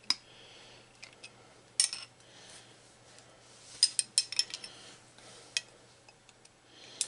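Hand tools clinking and clattering as pliers and a wrench are handled and set down: scattered sharp metallic clicks, bunched most thickly about four seconds in, over a faint steady hum.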